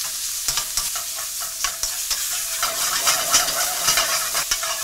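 Thinly sliced raw steak sizzling in hot oil in a wok, with a dense crackle of spitting fat, while metal tongs stir and turn the meat, clicking and scraping against the pan.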